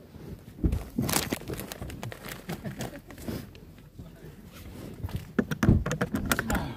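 A foil snack bag rustling and crinkling as it is picked up and handled, with scattered knocks and thumps. The loudest handling comes about a second in and again near the end.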